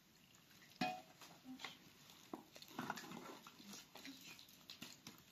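Faint, short animal calls among scattered clicks and knocks, with a sharper knock about a second in.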